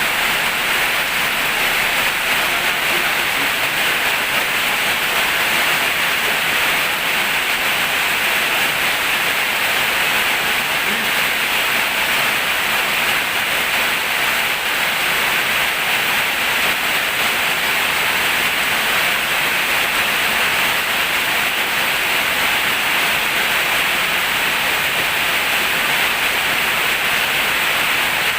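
Heavy rain pouring down in a steady, even hiss with no letup.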